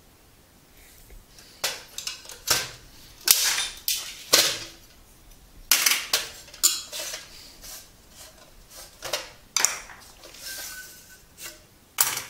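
A modem's aluminium case being handled and taken apart: irregular metallic clatter, clicks and short scraping strokes as the lid slides off and the circuit board comes out.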